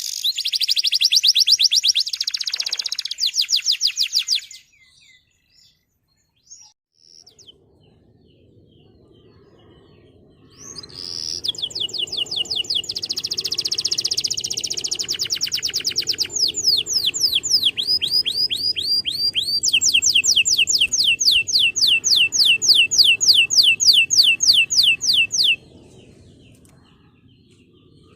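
Male domestic canary singing in rapid, high trills: a burst for the first four seconds or so, a pause, then a long run of repeated trill notes from about ten seconds in, changing to a different trill near the middle and stopping about three seconds before the end.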